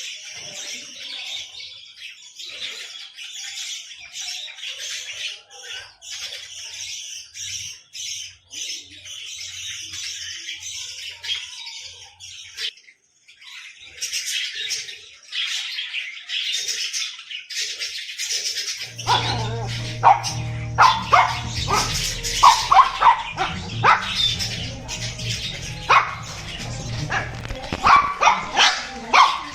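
Small pet birds chattering in a dense stream of rapid, high chirps, pausing briefly a little before halfway. About two-thirds of the way through, a low steady hum starts and louder, lower-pitched sharp sounds join the chirping.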